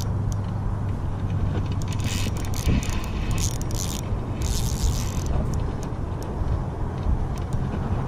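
Fishing reel clicking and whirring in spells of a second or two over a steady low hum.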